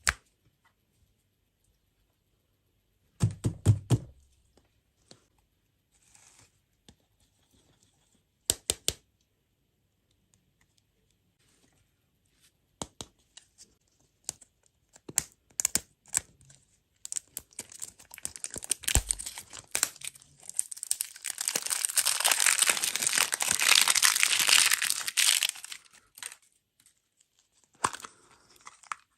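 Food packaging being handled: a few scattered clicks and taps, then from a little past halfway a long stretch of crinkling and tearing, loudest near the end.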